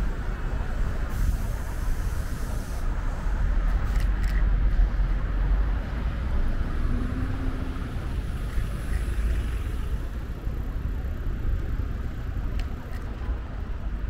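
Steady city street traffic noise heard from a moving bicycle, dominated by a heavy low rumble, with a few faint clicks.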